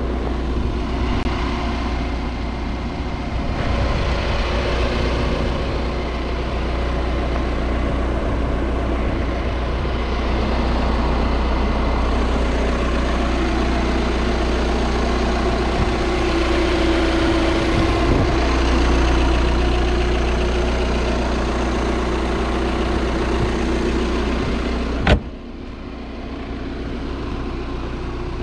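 Audi A6 2.0 TDI four-cylinder diesel engine idling steadily, with a constant low rumble. Near the end there is a single sharp knock, and the sound is quieter after it.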